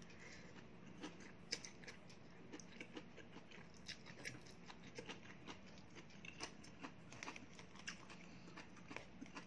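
Faint chewing of a mouthful of leafy greens, with small irregular clicks of a fork against a plastic food box.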